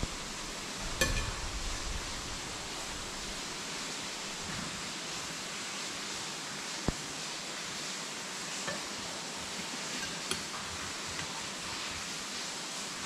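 A steady, even hiss with a few short, faint clicks scattered through it.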